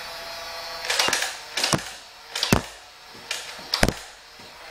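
A Nerf Barricade dart blaster firing foam darts: about five sharp shots, roughly one a second, over the steady whine of its battery-powered flywheel motors.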